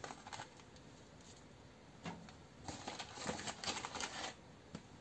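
Hand rummaging in a reusable plastic zip-top food bag, the plastic crinkling and the vegetable scraps inside rustling. The sound comes in quick crackly bursts, mostly from about two seconds in.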